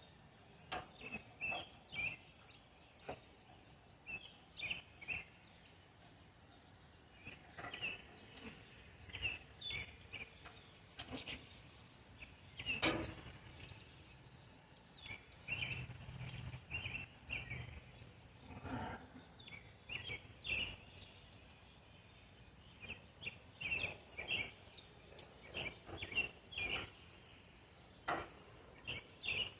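Small birds chirping on and off, with scattered sharp clicks and light knocks.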